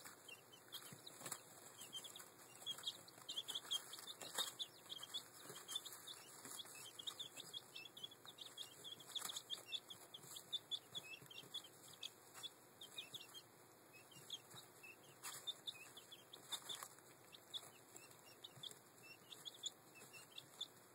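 Ten-to-fourteen-day-old Welsummer, Australorp and Ameraucana chicks peeping softly and continually, many short high cheeps a second, with scattered sharp taps and rustling as they peck at a corncob and scratch in wood shavings.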